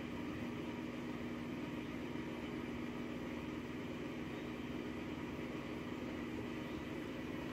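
Steady machine hum: a constant low drone with a held tone, over an even hiss.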